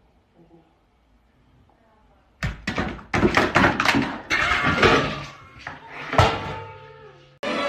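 Two cats suddenly scuffling about two and a half seconds in: a run of thumps and knocks against the floor and door, with cat yowls among them.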